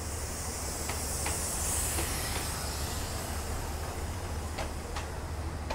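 Diesel railcar express train rolling slowly out of the platform: a steady low engine hum under a hiss that swells and fades, with two pairs of clicks as the wheels of passing cars cross a rail joint.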